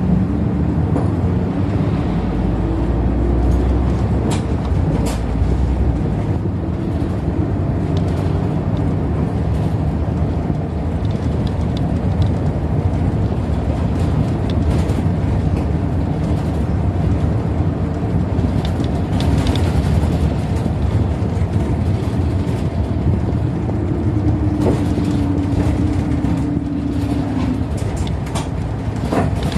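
City bus in motion, heard from inside the cabin: steady engine and road noise with scattered rattles and clicks. A heavier low rumble comes about two to six seconds in, and a steady tone sinks slightly in pitch a few seconds before the end.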